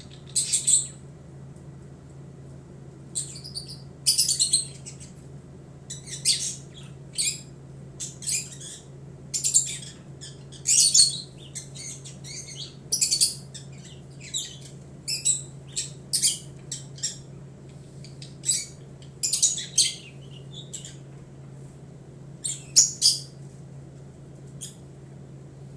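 Pet budgerigars chirping in short bursts of high chirps, a second or two apart, over a steady low hum.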